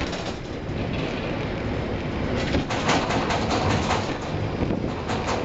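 Ship-to-shore container gantry crane running as its trolley travels along the boom with the spreader hanging below: a steady mechanical rumble and hum with rattling clacks, louder from about halfway through.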